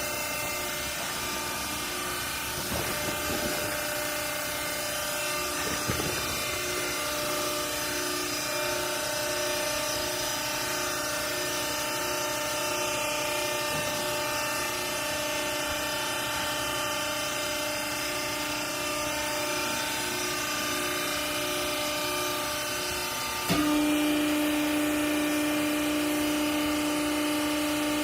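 Hydraulic vertical baler running, its motor and pump giving a steady hum with a faint pulsing tone and a few knocks early on. About three-quarters of the way through the hum steps up abruptly into a louder, stronger tone and holds there.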